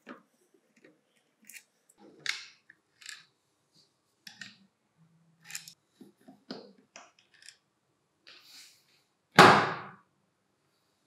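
Small metallic clicks and scrapes of a screwdriver backing out the gear-case screws of a Hitachi G18DSL cordless angle grinder. Near the end comes one much louder, short knock as the aluminium gear head comes free of the motor housing.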